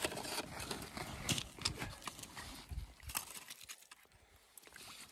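Irregular splashes, scrapes and knocks at a hole in the ice as a large northern pike is landed by hand. It is quieter for a moment near the end.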